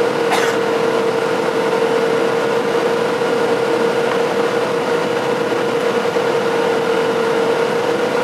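Boeing 737-700 cabin noise on final approach: a steady rush of air and engine noise from the CFM56 turbofans, with a steady droning hum running through it.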